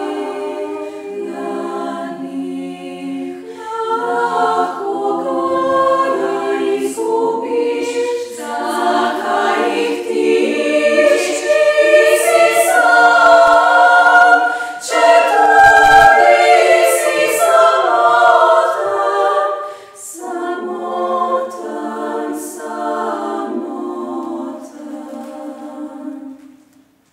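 Women's choir singing a cappella in several parts. The held chords grow louder toward the middle, then soften, and the phrase ends just before the close.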